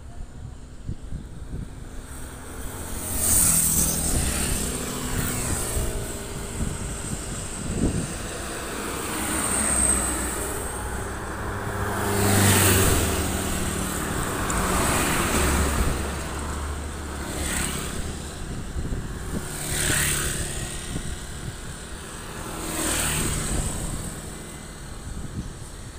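Road traffic passing close by on a highway: several vehicles, cars and motorcycles among them, go by one after another. Each one's engine and tyre noise swells and fades as it passes.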